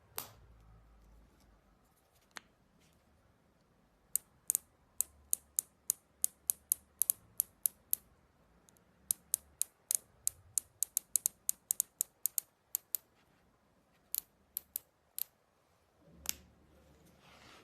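Windage and elevation turret knobs of a Swamp Deer HD Max 1.2-6x24 LPVO rifle scope being turned, giving a long run of sharp detent clicks, several a second, then a few spaced clicks near the end.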